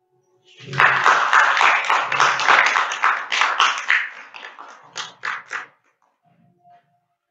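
Audience applauding: a burst of clapping that starts about half a second in and thins out to a few last claps before stopping about five and a half seconds in.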